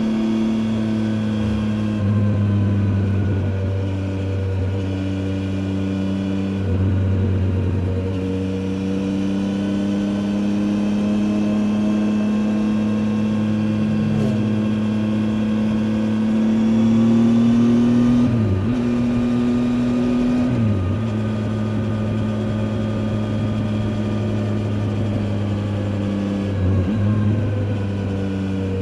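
Triumph Tiger 800 XCA's three-cylinder engine running under way at fairly steady revs, its pitch creeping slowly up through the middle, with brief dips in revs a few times in the second half.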